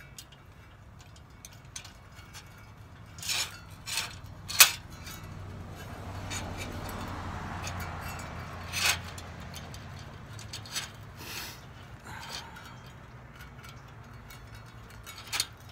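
Rusty chainsaw chain rattling and clinking against a steel pipe and a steel welding table as it is wrapped around the pipe by hand, with a few sharper metal clinks, the loudest about four and a half seconds in. A low, steady rumble rises and fades in the middle.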